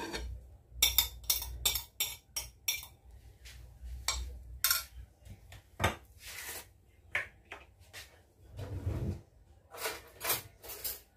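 A cutting board knocking against the rim of a nonstick pot as chopped onion is tipped and scraped into it. A quick run of sharp knocks comes about a second in, followed by scattered knocks and clatter of kitchenware.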